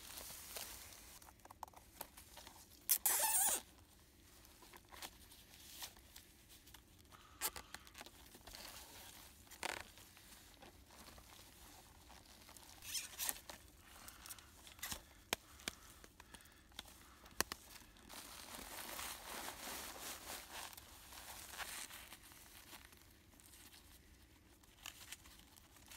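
Crinkling and rustling of a flex duct's foil-faced outer jacket and fibreglass insulation handled by gloved hands, with a few short, sharper rasps; the loudest comes about three seconds in.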